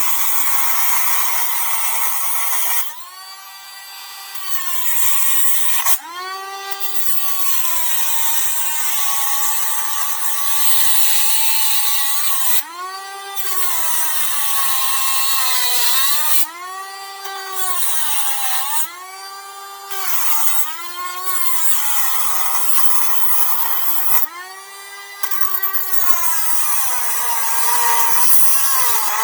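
Dremel rotary tool with a cutoff wheel cutting into the thin chrome-plated foil cap over a rusted lug nut. The motor's high whine sags in pitch as the wheel is pressed in and climbs again when it eases off, under a harsh grinding hiss that drops out briefly several times as the wheel lifts off the metal.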